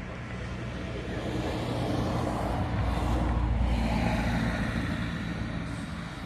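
A motor vehicle passing by, its engine and road noise rising to a peak about halfway through, then fading away.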